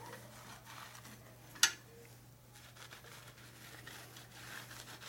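Microfiber towel rubbing and wiping over a freshly deburred wavy brake rotor, the cloth sliding without catching on the edges. There is a single sharp click about a second and a half in.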